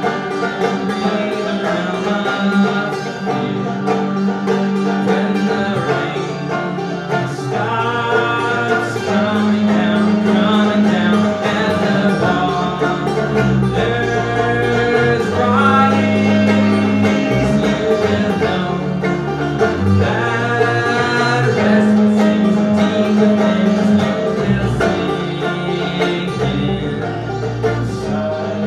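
Five-string banjo and double bass playing together live, the banjo picking over long held bass notes bowed on the upright bass.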